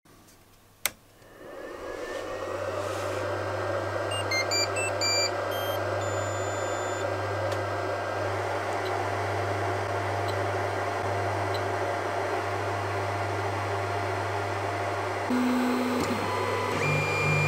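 Anycubic Chiron 3D printer switched on with a click: its cooling fans spin up into a steady hum and hiss, and it gives a short run of stepped beeps a few seconds in. Near the end its stepper motors start with a steady whine as the print head moves.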